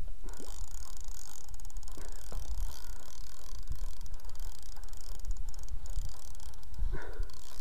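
Spinning reel being cranked to wind in line, a fast fine clicking whir that stops near the end, over a steady low rumble.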